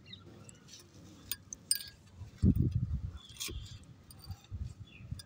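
Hand trowel scooping potting soil and tipping it into a clay pot: light clinks and scrapes, then low, dull rustling thuds of soil dropping in about two and a half seconds in.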